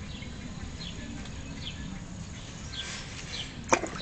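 Birds chirping at intervals over a low background rumble, with one sharp knock near the end, the loudest sound, as the cat reaches down into the bucket of water.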